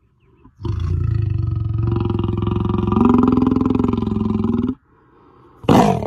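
Lion roaring: one long roar of about four seconds begins about half a second in. After a short pause a second roar starts near the end.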